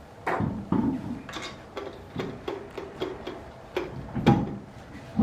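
A series of about a dozen sharp clicks and knocks, unevenly spaced, some only a third of a second apart.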